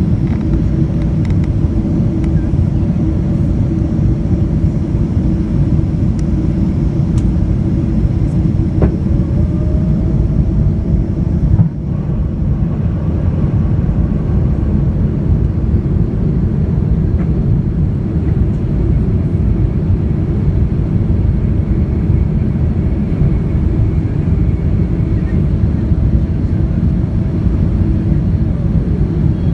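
Cabin noise of a Boeing 777-200ER: a steady, loud low rumble of airflow and jet engines, with a few humming engine tones that drift slightly in pitch. A sudden brief break about twelve seconds in.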